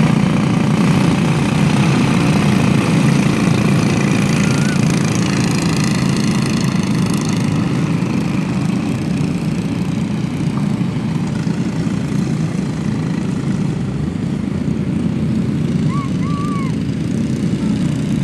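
A field of small-engine microstock race cars running at racing speed on an asphalt track, their engines blending into one steady, loud drone. It is loudest early as the pack passes close by, eases somewhat as the cars go round the far side, and swells again near the end.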